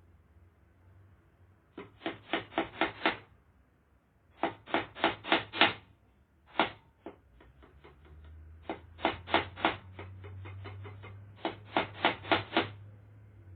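Hammer driving nails, in quick runs of five or six blows that grow louder within each run, with a few lighter taps between the runs.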